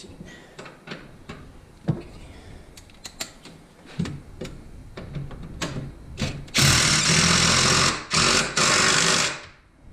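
Scattered light clicks and knocks of hardware being handled, then a cordless impact driver runs a nut down onto a rear shock's top mount in three bursts: one long, one short, one medium.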